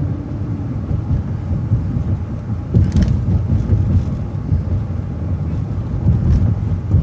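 City transit bus driving along the road: a steady low rumble of engine and road noise, with a brief clatter about three seconds in.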